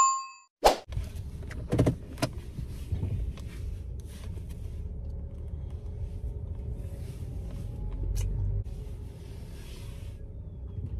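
Car interior noise: a steady low rumble of the car running, with a sharp click a little under a second in and a few lighter knocks and clicks over the next couple of seconds.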